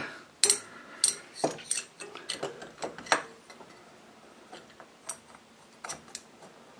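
Sharp metallic clicks and knocks as a finned cylinder barrel is handled and lowered over the piston and onto the studs of a CG125-type 125cc engine. There are several loud ones in the first three seconds and a few fainter ones later.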